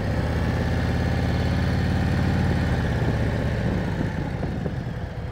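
Harley-Davidson motorcycle's V-twin engine running at low speed while the bike is turned around, growing fainter in the second half.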